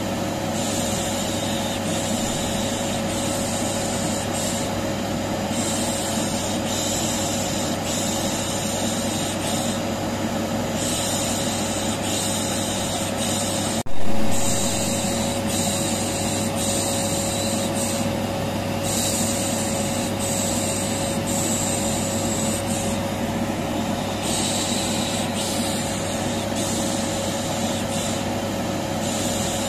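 Vacuum cleaner running steadily with a constant motor hum, overlaid with a repeated 'shh' shushing hiss, as a continuous soothing noise for a colicky baby. About fourteen seconds in the sound breaks off for an instant and comes back briefly louder.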